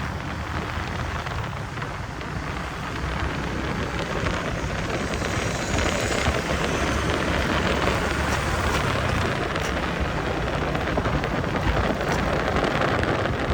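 Road traffic noise: vehicles running under an even, steady rushing hiss.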